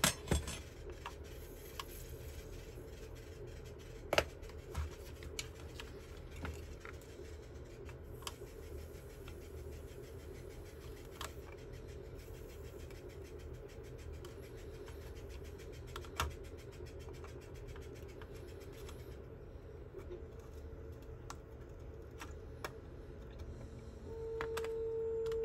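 Scattered light clicks and scrapes of hand tools working on an electronics board, over a steady low hum. About a second before the end a steady humming tone starts.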